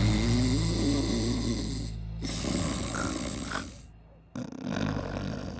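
A man snoring loudly, a heavy rasping snore likened to a train, with a short break about four seconds in.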